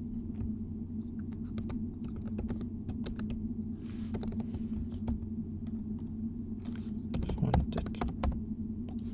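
Typing on a computer keyboard: short runs of key clicks with pauses between them, over a steady low hum.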